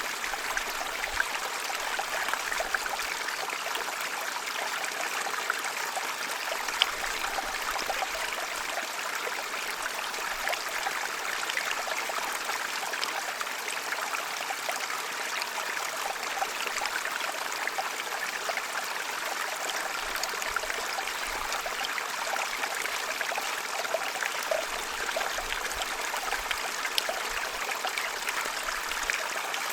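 Gentle mountain stream flowing over stones: a steady, even babble of running water with small trickles and splashes throughout.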